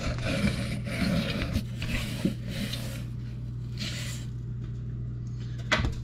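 Scrubbing inside a garbage disposal's drain opening: repeated rubbing, scraping strokes, closer together in the first few seconds and then easing off. A steady low hum runs underneath.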